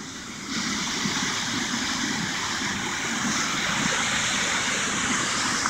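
Small waterfall of a mountain river, white water pouring and splashing between boulders, heard from above as a steady rushing hiss that swells about half a second in.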